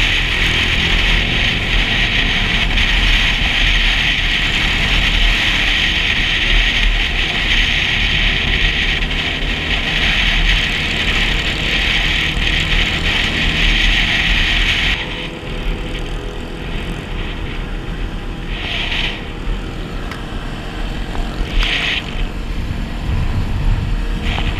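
Wind rushing over a helmet-mounted camera on a moving motorcycle, over a steady low engine and road rumble. The wind noise drops off sharply about fifteen seconds in, with a few short rushes after that.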